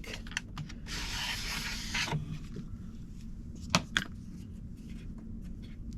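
Handling noise from a Dremel Multi-Vise as its vise head is loosened and taken off the base: a scraping rub about a second in, then two sharp clicks near the middle, with small ticks around them.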